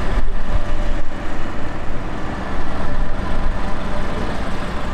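An engine running steadily with a deep low rumble.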